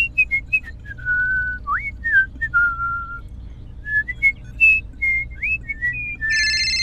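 Whistling: a short tune of single clear notes with quick upward slides between them. Near the end a steady electronic beep tone starts.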